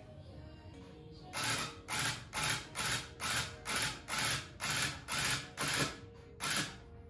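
Electric tufting gun punching yarn into the backing cloth in a string of short mechanical bursts, about two a second, starting about a second and a half in.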